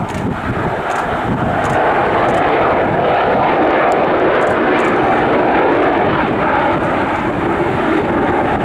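Bombardier Global Express business jet on the runway, its two rear-mounted Rolls-Royce BR710 turbofan engines running loud with a steady rushing noise that swells slightly in the first couple of seconds and then holds.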